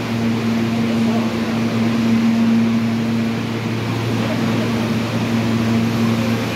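Vintage R1/R9 subway cars standing at the platform, giving off a steady low electrical hum with no change in pitch.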